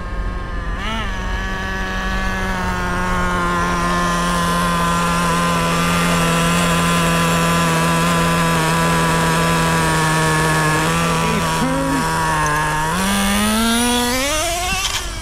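Small two-stroke nitro engine of a Traxxas Rustler RC truck (the TRX 2.5) running at high revs during break-in, its mixture just richened. The pitch holds steady and slowly sinks after a quick blip about a second in. Near the end it revs up sharply and wavers up and down.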